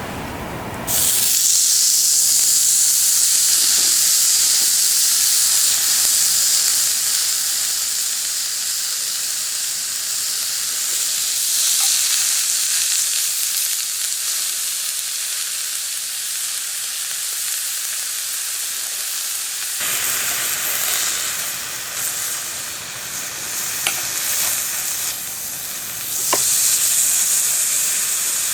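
Food sizzling as it fries in a pan: a steady, loud hiss that starts suddenly about a second in, with a few small clicks near the end.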